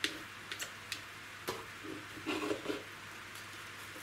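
Sphagnum moss rustling and crackling as it is pushed by hand into a clear plastic pot, with scattered light clicks and a busier patch of rustling about two seconds in.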